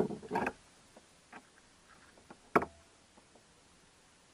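A few scattered light clicks and knocks over a quiet background, the sharpest about two and a half seconds in, after a short noisy rush that dies away at the very start.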